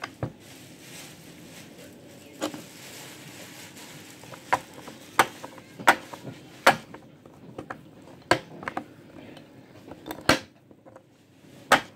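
Batteries being taken out, turned around and pushed back into a plastic toy's battery compartment: about ten sharp clicks and taps at irregular intervals.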